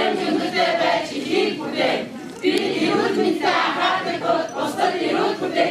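Group of mostly women's voices chanting a company motto in unison, phrase by phrase with short pauses between.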